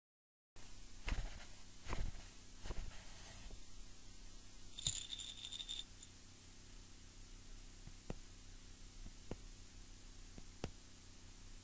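Faint room noise with a low hum, broken by a few soft knocks in the first few seconds and a brief high-pitched buzzing rattle about five seconds in. A few sharp single clicks come near the end.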